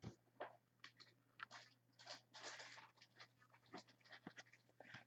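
Faint handling of trading cards: soft scattered clicks and rustles as cards are slid and flipped, with a slightly longer rustle in the middle.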